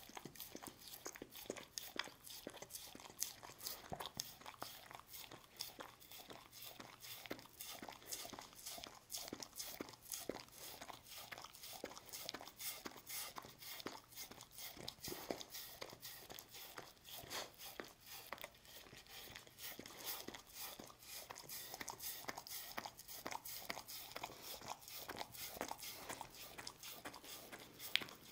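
A dog licking Churu, a soft lickable treat purée, off a wooden cutting board: a steady run of small wet tongue clicks and mouth smacks against the wood.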